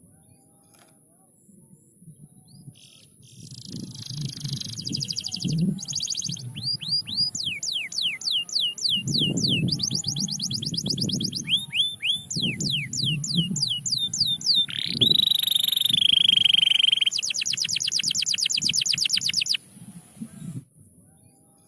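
Domestic canary singing a long, varied song that starts a few seconds in: rapid trills of repeated notes, runs of quick downward-sweeping notes, and a rising whistle that levels off, before stopping shortly before the end.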